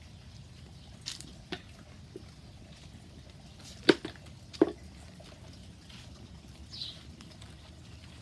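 A few sharp clicks and knocks over a low steady background: two small ones in the first second and a half, then two louder knocks about half a second apart near the middle.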